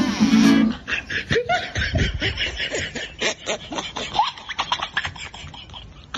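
Music stops within the first second. After that comes a run of soft clicks and short squeaky voice sounds: snickering laughter.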